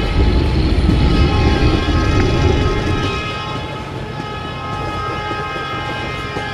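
A long, steady horn-like chord held over a heavy low rumble, the rumble strongest in the first three seconds.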